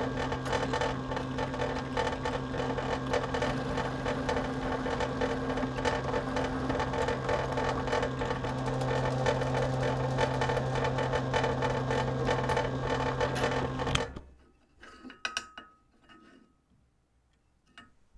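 Bench drill press running steadily, its bit cutting through the steel tang of a file knife blank and the wooden handle scale laid on it. The motor stops suddenly about three-quarters of the way through, followed by a few light clicks of metal being handled.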